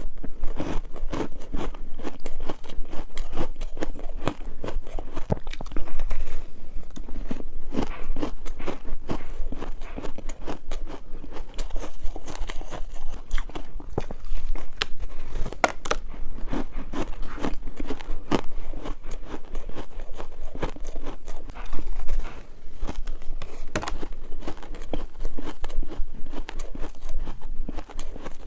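Person biting and chewing dry refrigerator-freezer ice, with dense, continuous crunching and crackling.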